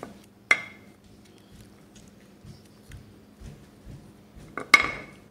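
White ceramic spoon clinking against the rim of a ceramic ramekin as spice powder is tapped off into it: two sharp ringing clinks, one about half a second in and a louder one near the end, with a few soft knocks between.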